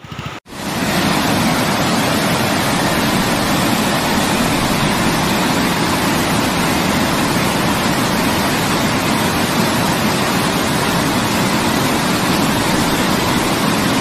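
Water of a rocky stream rushing and splashing over stones, a steady loud rush that starts abruptly about half a second in.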